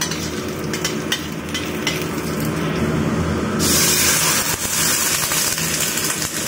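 Sliced garlic sizzling in oil in a steel wok over a gas burner, with the metal spatula clicking against the pan, under a steady low hum. About three and a half seconds in, water is poured into the hot wok and a much louder, brighter hiss takes over.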